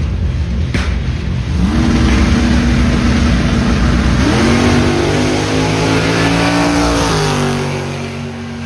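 A drag car's engine running hard on a pass down the strip: a loud, low rumble whose engine note climbs in pitch about four seconds in, holds, then drops about seven seconds in as the sound fades away.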